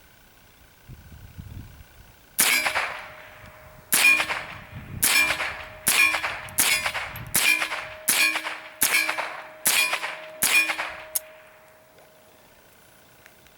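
A Taurus Model 63 semi-automatic .22 LR rifle firing about ten shots in a steady string, roughly one shot a second, with steel targets ringing under the hits. The string starts a couple of seconds in and ends about two seconds before the close.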